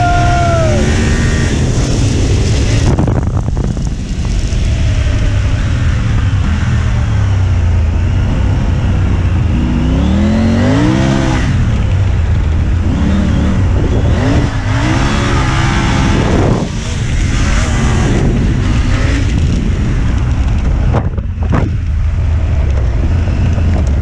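Triumph Tiger 900 Rally Pro's three-cylinder engine running under load, its pitch climbing and dropping several times in the middle as the bike accelerates and shifts, under a heavy rush of wind on the helmet microphone.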